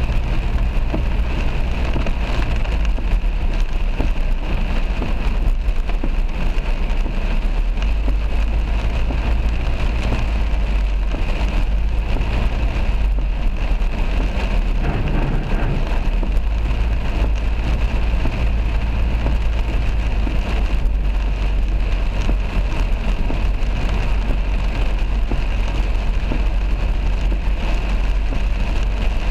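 Heavy rain drumming on a moving car's windscreen and roof, heard from inside the cabin, over the steady low rumble of the car on the road.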